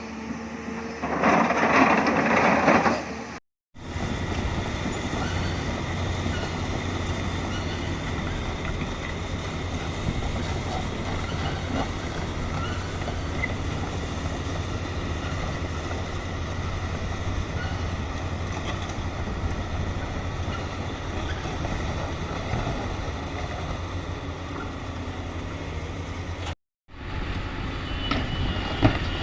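Hyundai hydraulic excavator's diesel engine running steadily, with loud scraping and crunching of limestone under the bucket for the first few seconds. The sound breaks off abruptly twice, about three and a half seconds in and near the end, each time resuming with the same engine hum.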